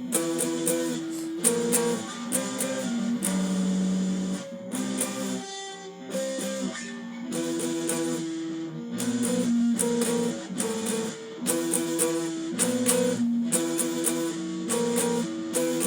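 Electric guitar playing a power-chord riff: chords struck in short rhythmic hits and let ring, over and over.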